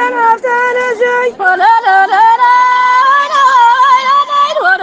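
A woman's solo voice singing a folk song, with long held notes that waver and bend in ornamental slides between short phrases.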